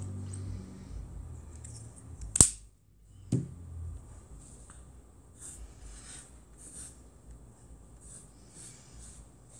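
A sharp plastic snap from an acrylic paint bottle's cap about two and a half seconds in, then a knock a second later. After that a paintbrush brushes blue acrylic paint across canvas in soft, short strokes, about two a second.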